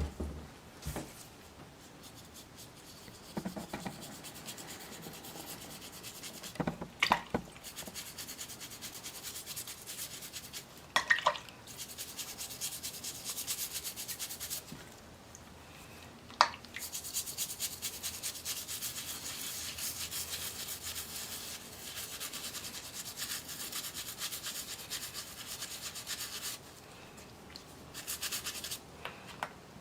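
Quick, rapid rubbing strokes on a small object, kept up for several seconds at a time, with a few sharp knocks in between.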